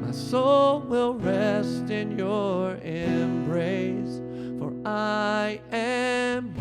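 Slow song: a solo voice singing long, wavering notes over acoustic guitar and sustained chords.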